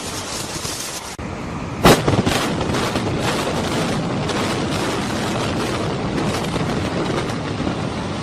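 Demolition explosive charges going off: one sharp loud bang about two seconds in, followed by a few quicker cracks, then a steady rushing noise.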